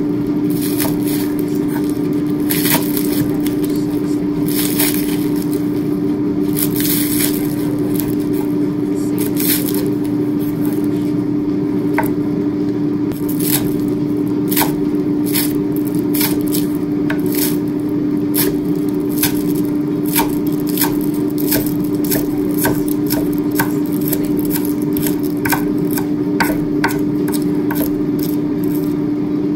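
Kitchen knife chopping green onions on a wooden cutting board: sharp strokes against the board, spaced out at first and coming about two a second in the second half, over a steady low hum.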